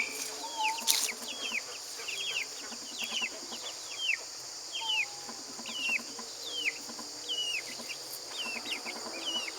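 Chicks peeping over and over, short high downward-sliding peeps one or two a second, over a steady high buzz of insects.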